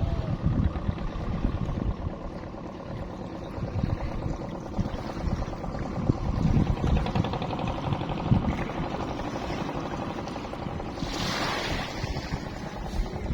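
Kocha River water lapping and rushing, with gusty wind rumble on the microphone and a steady engine hum underneath. A louder rush of water comes about eleven seconds in.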